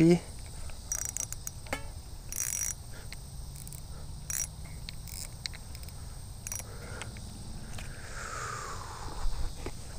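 Steady high buzz of insects, with a few scattered short clicks and scrapes from a spinning reel and line being handled.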